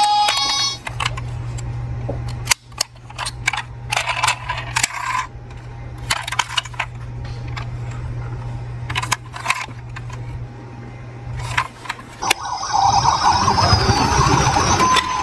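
Toy cars clicking and clacking as they are handled, over a steady low hum that stops about twelve seconds in. Just after that a continuous rattling noise begins and runs on, as of toy cars rolling down a slope track.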